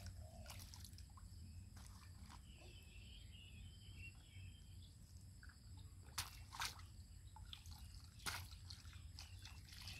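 Faint sloshing and dripping of shallow muddy water as a child scoops and stirs it with his hands and a plastic scoop, with a few short, sharper splashes around six and eight seconds in.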